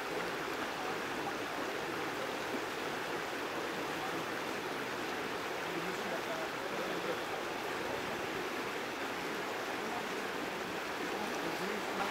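Shallow river current rushing steadily around the anglers' legs, a continuous even wash of flowing water.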